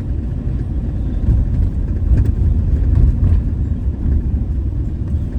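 Camper van driving along a road: steady low engine and tyre rumble.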